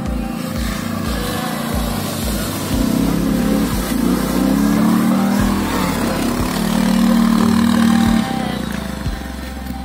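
Hisun Tactic 550 ATV engine revving up and down as the quad drives through a muddy puddle with splashing and then pulls away. It is loudest in the middle and again about eight seconds in, then eases off.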